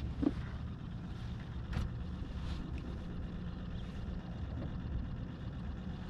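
Steady low rumble of a small boat's motor running, with a few light clicks about a second apart near the start.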